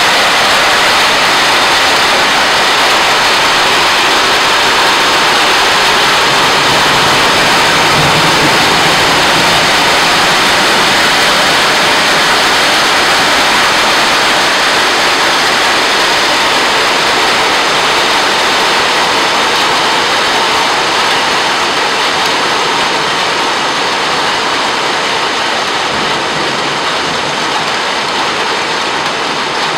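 Heavy rain mixed with hail pelting down on tiled roofs, hedges and paving, a loud steady hiss that eases slightly in the last few seconds.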